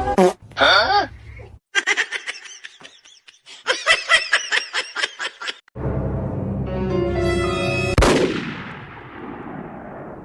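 Music, broken up by abrupt changes between short sound clips, with a sharp bang about eight seconds in.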